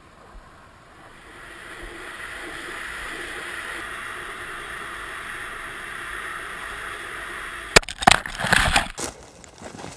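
Air rushing over the falling payload and its camera, a steady hiss that builds over the first couple of seconds. About eight seconds in, a sharp knock and a second of loud clattering knocks as the payload hits the ground among rocks, then a few faint knocks as it settles.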